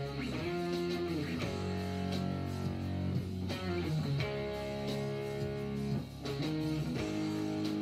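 Squier electric guitar playing chords and letting them ring, moving to a new chord every second or two, with short breaks about three and a half and six seconds in.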